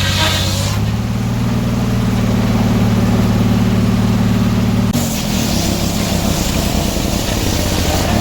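Engine running steadily, its pitch shifting about a second in; about five seconds in, the even tone gives way to a rougher, noisier sound with a harsher top.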